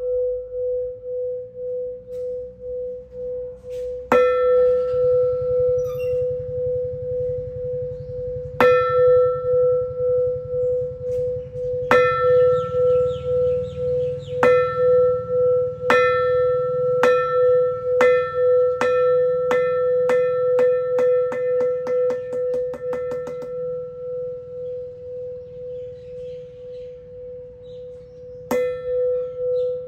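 A rusty metal temple bell is struck with a wooden mallet, with strokes several seconds apart that speed up into a quick roll about two-thirds of the way through. The bell's deep, wavering hum rings on and fades until one more stroke near the end.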